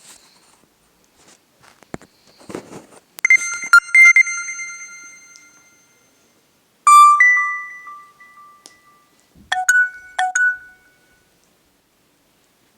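Nokia C2-01 mobile phone playing short electronic alert tones one after another: three brief chimes a few seconds apart, each a few clear notes that ring out and fade. The last is two quick bright bursts. Faint clicks come before the first chime.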